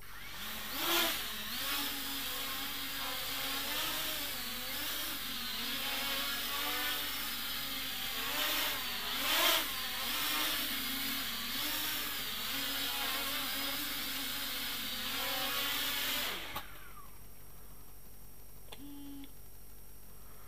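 XK X251 brushless quadcopter's motors spinning up, then running for about sixteen seconds, the whine wavering in pitch with the throttle and surging louder twice, before winding down with a falling whine. A short faint beep follows a couple of seconds later.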